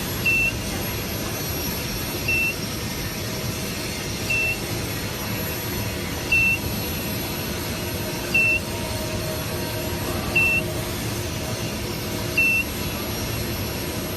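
A short, high electronic beep repeating about every two seconds, seven times, over the steady hum of an induction heating machine's air-cooling fan.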